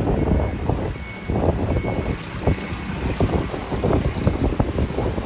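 A high electronic beep repeating about every 0.7 s, six or seven times with a short break partway, over steady traffic noise and scattered knocks.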